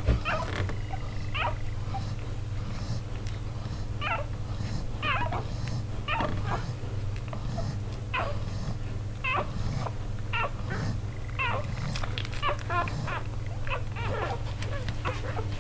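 Newborn puppies squeaking and whimpering as they nurse, with short high squeaks coming one or two a second.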